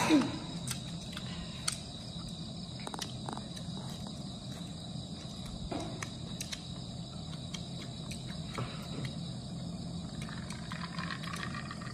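Crickets chirring in one steady high tone, with scattered small clicks and a low steady hum underneath.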